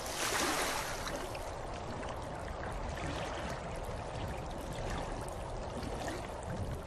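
Steady rushing-water sound effect like a flowing stream, a little louder in the first second.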